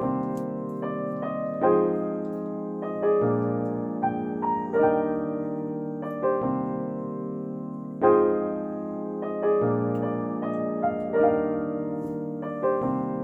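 Background music: a gentle piano melody over sustained chords, changing chord about every second and a half.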